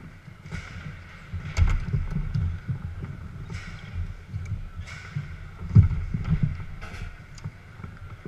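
Garlando foosball table in fast play: rods sliding and spinning, with an irregular run of knocks and sharp clacks from the ball and figures. The loudest clack comes near the end.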